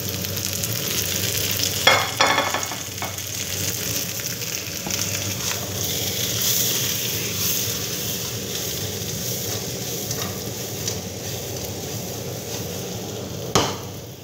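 Diced potatoes, onion and freshly added zucchini sizzling as they fry in oil in a nonstick pan while being stirred and tossed. A few sharp knocks come about two seconds in, and one louder knock comes near the end.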